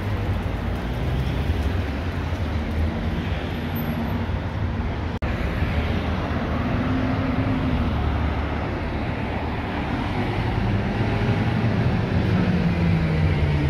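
Street traffic rumbling, then a Mercedes-Benz Citaro articulated city bus driving past close by, its engine running with a low hum that grows stronger near the end. A brief break in the sound about five seconds in.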